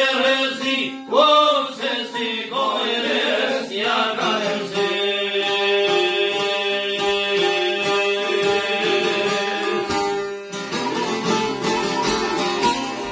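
A man singing an Albanian folk song over several strummed long-necked lutes (çifteli and sharki), holding one long note midway; about ten seconds in the voice stops and the lutes carry on alone.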